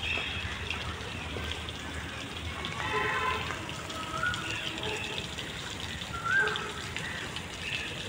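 Small pond fountain spraying and splashing back into the water, a steady rush, with a few short high chirps over it.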